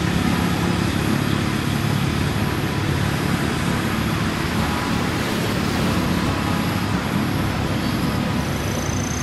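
Steady outdoor rumble with a hiss over it, of the kind road traffic makes, and a brief thin high tone near the end.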